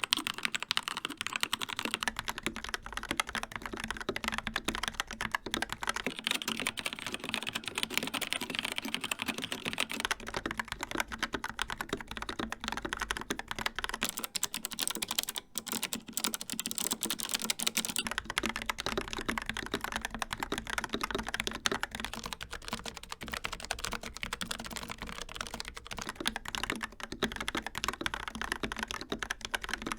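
Continuous typing on a series of mechanical keyboards, each played for about eight seconds: a Keychron K2 with Gateron Red switches, then an Xtrfy K4 with Kailh Red, an MSI Vigor GK50 with Kailh White, and a Logitech MX Mechanical Mini with Kailh Brown switches. The result is a fast, steady stream of key clicks and clacks.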